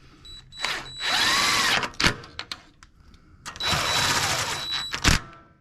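Power drill-driver run twice in bursts of about a second each, its motor whine rising and falling with the trigger, snugging down the valve cover bolts on a small snowblower engine. A sharp click follows each run.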